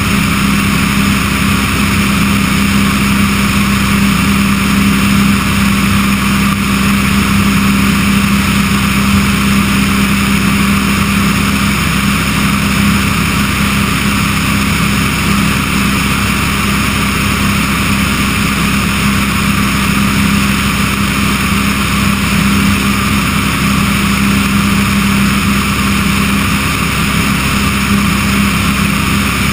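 Remos light-sport aircraft's engine and propeller running steadily at cruise, with a constant low drone and the rush of the airstream on an outside-mounted microphone.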